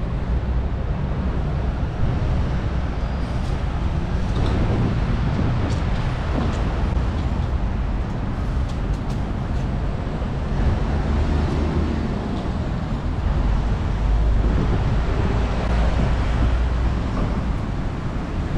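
Steady city road traffic noise, a continuous wash of passing vehicles that swells and eases slightly.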